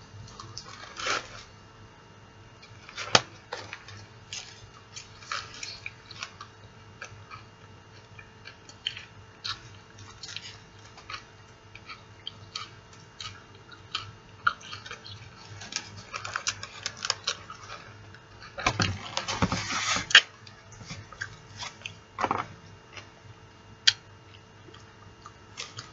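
Close-up eating sounds: biting into and chewing a cheeseburger, mixed with scattered short clicks and rustles from handling its paper-lined foam takeout container. The loudest rustling comes about nineteen seconds in.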